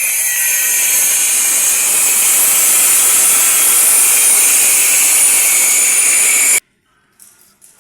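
Loud steady hissing rush, strongest in the high range, that cuts off suddenly near the end.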